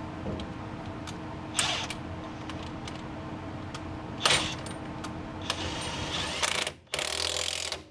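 Metal hand-tool work on the car's rear subframe and diff mount bolts: scattered clicks and ratcheting over a steady hum, with two loud metallic clanks about a second and a half and four seconds in. A denser clatter follows and then cuts off suddenly near the end.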